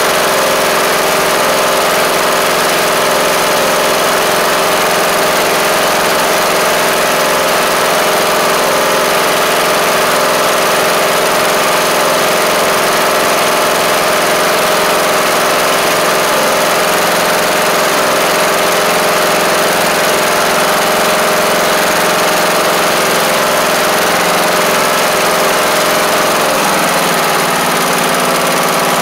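Briggs & Stratton PowerBuilt 19.5 lawn-tractor engine running steadily on its first run after being swapped into the mower. Its pitch shifts slightly near the end.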